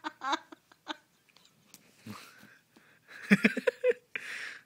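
A person being tickled, laughing breathlessly in short bursts with wheezy breaths between them. A quick burst of giggles comes about three and a half seconds in, followed by a breathy exhale near the end.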